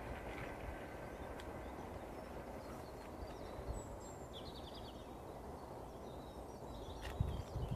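Faint outdoor background noise with a low, steady rumble and a few short bird chirps about halfway through. A couple of low bumps come near the end.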